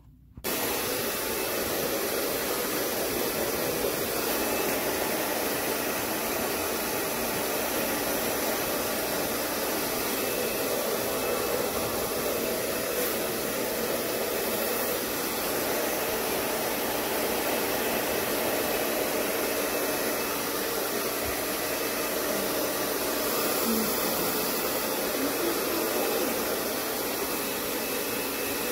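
Handheld hair dryer blowing steadily, switched on about half a second in, drying a small dog's coat.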